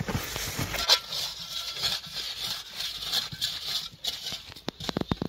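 Gloved hand scraping and brushing loose soil away from the root flare of a pine trunk, an irregular gritty rustle, with a few sharp clicks near the end.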